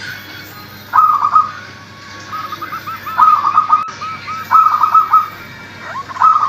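Zebra dove (perkutut) singing: four loud phrases of quick, hooked cooing notes, one about every second and a half, with softer single coos between them.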